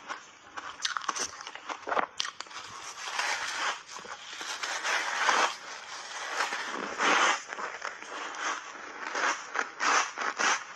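Chunks of purple ice coated in milk powder being bitten and chewed close to a lapel microphone: irregular crisp crackling with several louder crunches as the ice breaks.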